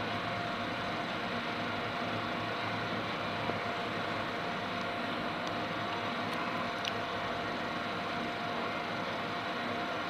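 Steady background hum and hiss with a faint, even high whine, like a running machine or fan, and a couple of faint clicks midway.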